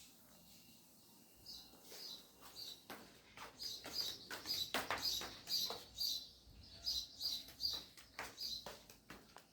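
Bird chirping: short high chirps repeating about three times a second, starting about three seconds in.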